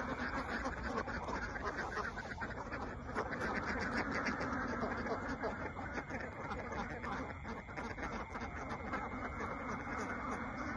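A large flock of laying ducks quacking together, many calls overlapping in a steady, dense chorus.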